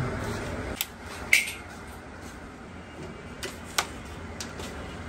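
A few sharp, separate metal clicks and clinks, one about a second in ringing briefly, over a steady low workshop background: hand tools being picked up and put to work as the engine's disassembly begins.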